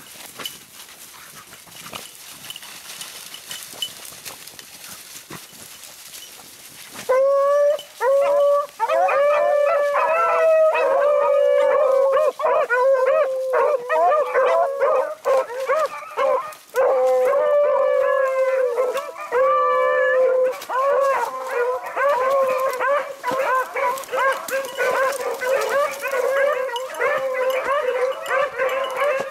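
A pack of beagles breaks into loud baying about seven seconds in, with several hounds' voices overlapping more and more densely towards the end: rabbit hounds giving tongue as they run a rabbit's scent trail.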